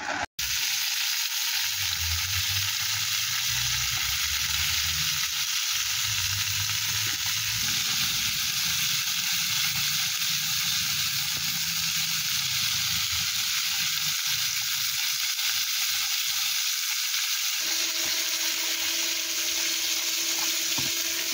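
Sliced calabresa sausage and onion frying in a pan, a steady sizzle, stirred now and then with a spatula.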